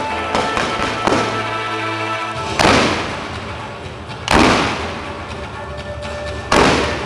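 Fireworks going off in a large display: three big booms about two seconds apart, each with a long echoing tail, after a few lighter thumps at the start. Music plays steadily underneath.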